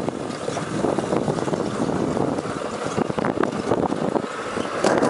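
Summer bobsled sliding fast down a steel trough track: a steady rushing rolling noise of the sled on the metal, mixed with wind buffeting the microphone, with a few short knocks as it rides through the curves.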